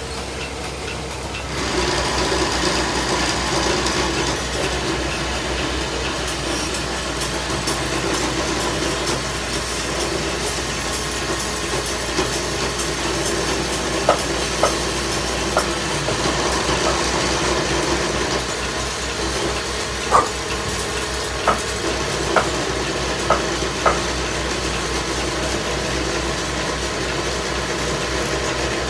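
Wood lathe running steadily while a stick of coloured lac is pressed against the spinning cot leg, getting louder about two seconds in. A few sharp clicks come in the middle stretch.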